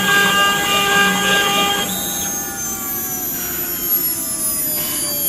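CNC router spindle whining with several high steady tones at once. About two seconds in the louder part stops, and the remaining tones slowly fall in pitch.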